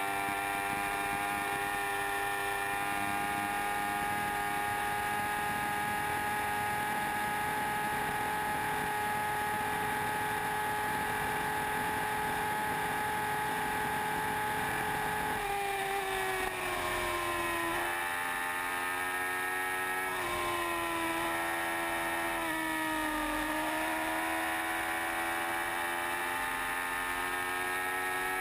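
Yamaha R1 sport bike's inline-four engine held at high revs near top speed, with heavy wind rush. The engine note holds a steady pitch for about half the time, then drops and climbs back several times as the throttle is eased and reopened.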